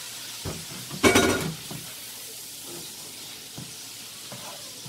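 Shrimp sizzling in a hot frying pan while being stirred with a spoon. There is a loud clank of the spoon against the pan about a second in, and a few lighter knocks after it.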